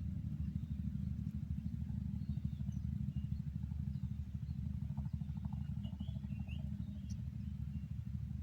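Strong wind buffeting the microphone: a steady, low rumble that flutters unevenly, with faint short chirps about midway.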